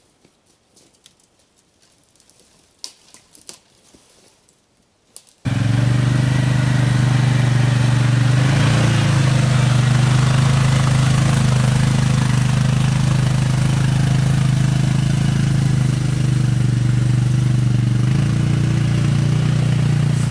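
Faint rustles and ticks, then suddenly an ATV engine running steadily at low speed, much louder, while the quad tows a deer carcass along a trail.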